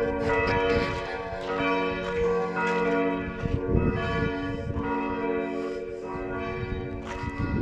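Several church bells ringing together in a peal, with strikes overlapping and each tone ringing on between strokes.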